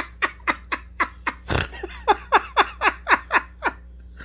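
A man laughing hard: a long run of quick falling 'ha' bursts, about four a second, with a short break about a second and a half in, stopping just before the end.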